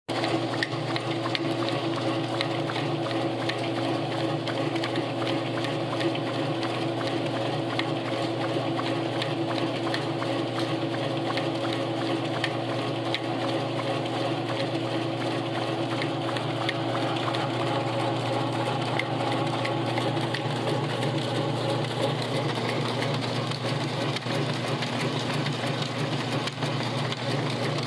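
Secap T2000 tabbing machine running steadily as it feeds and tabs sheets: an even motor hum overlaid with many quick, light clicks from the feed and rollers.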